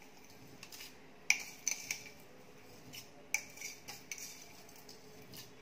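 A spoon clinking lightly against a container a handful of times as salt is scooped out and added to the pot.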